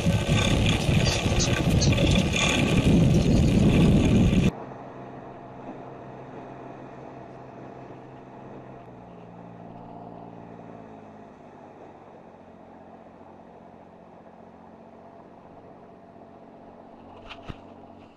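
Loud rushing noise on the deck of a fishing boat at sea, cut off suddenly about four and a half seconds in. A much quieter steady hum of the boat's engine follows, with a faint click near the end.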